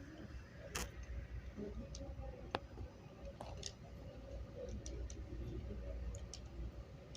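Quiet room tone with a low hum and scattered faint sharp clicks.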